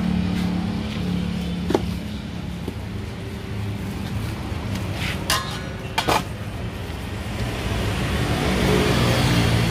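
Roadside traffic noise with engines running and a vehicle passing, swelling louder near the end. A few sharp clinks of a metal scraper against an aluminium tray come through, the strongest two about five and six seconds in.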